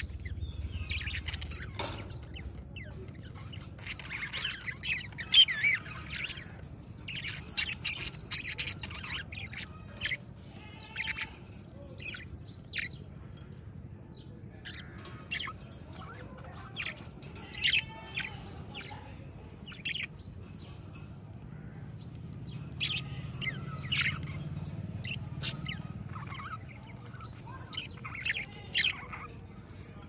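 A flock of budgerigars chirping and chattering, short calls coming in irregular clusters, over a low steady hum.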